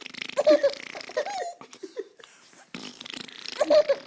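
A four-month-old baby laughing in two breathy bouts of giggles, the second starting near the end.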